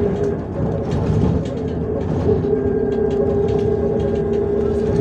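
Cabin noise of an MAZ 105 articulated city bus under way: a steady low rumble of engine and road with light rattles, and a steady whine that comes in strongly about two seconds in and holds.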